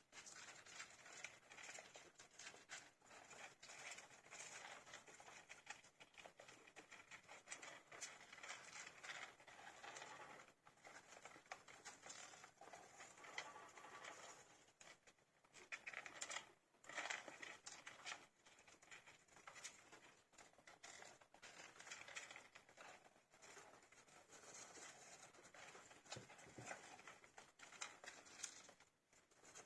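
Litter of 15-day-old hamster pups chirping and squeaking: a faint, dense run of many quick high squeaks and small clicks, with two short lulls, one about halfway through and one near the end.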